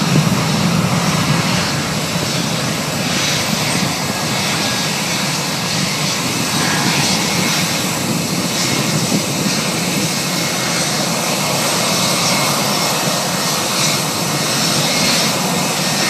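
Boeing 757 airliner's twin jet engines at takeoff power as it rolls down the runway: steady, loud jet noise with a deeper rumble that is strongest at the start.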